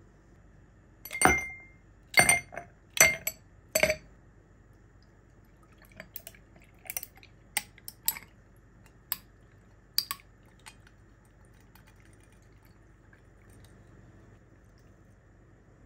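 Ice cubes clinking against glass: four sharp clinks in the first few seconds, then a run of lighter clinks.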